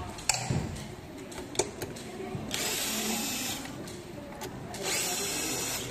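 Handheld electric screwdriver running in two short spells of about a second each, driving screws into the plastic cover plate of an electric scooter's battery compartment, with a few light clicks of handling before it.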